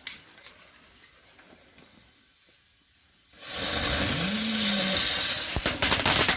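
A mini firework igniting with a loud hiss about three seconds in, breaking into rapid crackling pops near the end.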